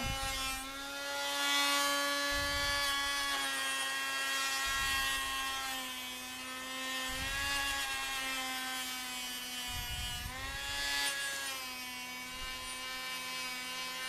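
Makita GD0601 electric die grinder running with a Roloc sanding disc, polishing rust off the surface of an old steel hammer: a steady high motor whine that dips slightly in pitch three or four times.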